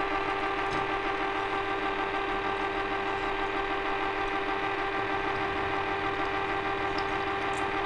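Small electric chocolate fountain's motor running, a steady hum of constant pitch that does not change.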